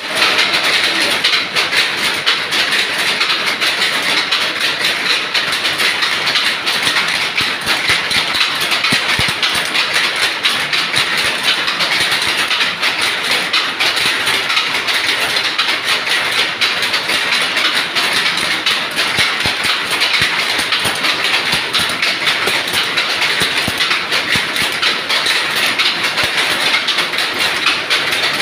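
Several power looms running together: a loud, steady, rapid mechanical clatter.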